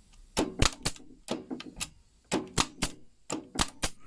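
An electric pin nailer (pin gun) firing empty, with no pins loaded: a steady run of sharp mechanical snaps, about three to four a second. It is working.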